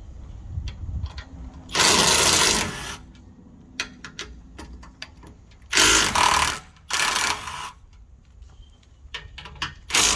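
Power tool driving a 9/16 socket to back out the bolts holding a trailer's manual tongue jack, running in four short bursts of about a second each, with small metal clicks between.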